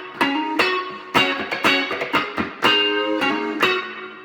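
Electric guitar, a Telecaster on its middle pickup setting (Fender '62 neck single-coil together with a Seymour Duncan Lil '59 bridge humbucker), played as a run of picked chords and notes. The last chord rings out and fades near the end.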